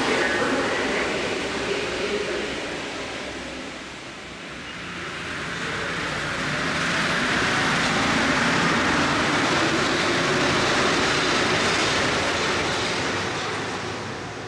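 MP59 rubber-tyred metro train pulling out of the station. The sound dips about four seconds in, then swells to a loud steady rush of running noise and fades as the train leaves.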